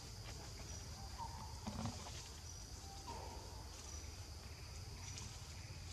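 Outdoor forest ambience: a steady high-pitched insect drone, with a few short, faint whistled bird notes.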